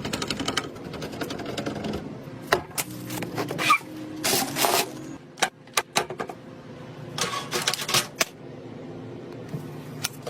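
Irregular clicks, snaps and short scraping rattles of computer parts being handled and fitted together, several sharp clicks standing out.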